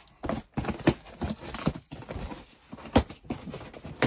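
Cardboard model-kit boxes being handled: a string of irregular knocks and taps with some rustling, the sharpest knock about three seconds in.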